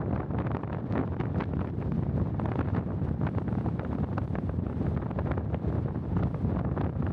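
Wind rushing and buffeting over the microphone of a moving vehicle, mixed with steady road noise.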